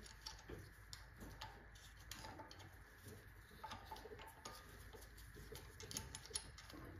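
Near silence with faint, scattered small metal clicks and taps as a bearing separator is fitted behind the teeth of the crankshaft timing gear.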